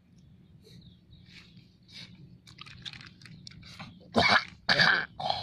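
Sucking and slurping at a small plastic liquor pouch, with faint crinkling of the plastic, then three loud, harsh vocal bursts from about four seconds in.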